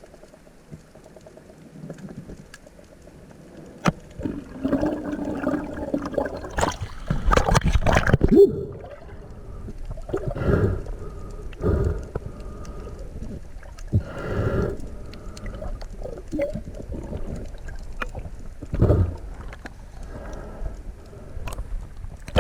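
Water sloshing and gurgling in irregular surges, with short rising and falling pitched gurgles among them.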